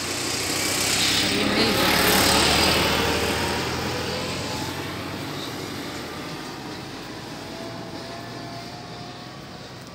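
Farm tractor towing a disc harrow drives past on the road, its engine noise swelling to a peak about two seconds in, then fading slowly as it moves away.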